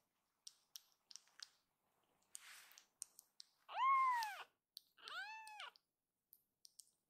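Very young tabby kitten meowing twice, high cries that rise and then fall in pitch, the first longer and louder, about a second apart. A few faint clicks and a short breathy sound come before them.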